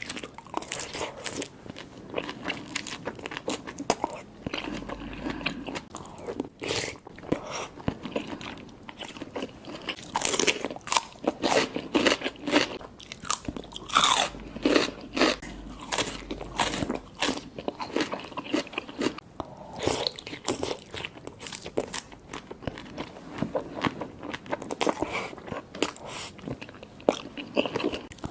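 Close-miked eating of boiled shrimp and seafood and soft-boiled eggs: a run of sharp, irregular bites with chewing between them.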